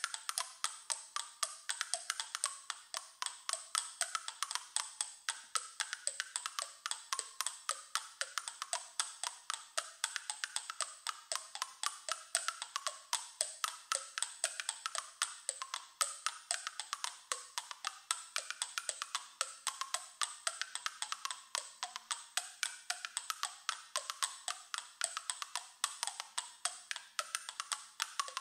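Pebbles clicked together rapidly in front of an open mouth, the oral cavity acting as resonator. It makes a steady stream of hard stone clicks whose ringing pitch rises and falls as the mouth changes shape, giving a wandering melody.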